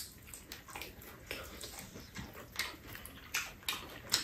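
Eating sounds from two people working through bone-in fried chicken: chewing, with short scattered clicks and crackles as the pieces are pulled apart by hand.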